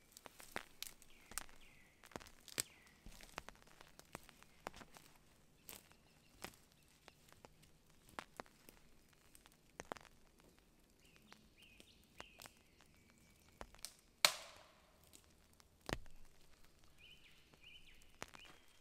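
Footsteps and twigs cracking as a person moves over a dry forest floor of needles, bracken and dead sticks, with one much louder sharp crack about 14 seconds in. A small bird calls a few times in short bursts near the start, in the middle and near the end.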